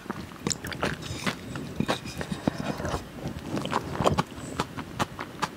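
Close-miked eating: wet chewing and crackling mouth clicks, with a spoon scraping and clicking in a small bowl.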